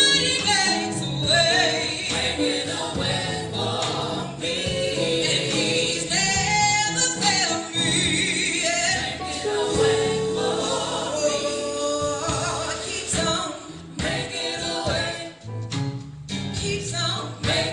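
Live gospel singing by a vocal group, with several voices moving through melodic runs and held notes over low accompaniment.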